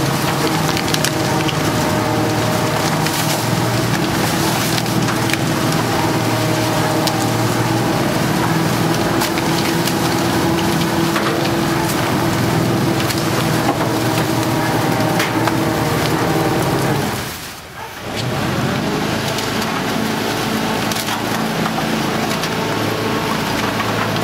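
Rotopress rotary-drum garbage truck running its compaction drum: a steady mechanical drone with dense crackling and crunching as bagged rubbish and plastic bottles are drawn in and crushed. The sound drops away briefly about two thirds of the way through, then resumes.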